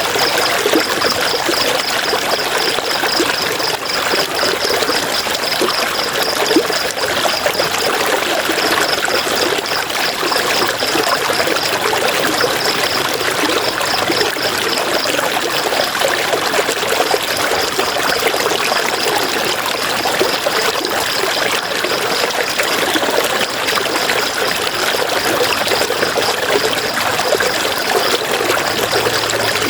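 River water flowing and babbling steadily. Over it, a high chirping repeats several times a second, breaking off briefly a few times.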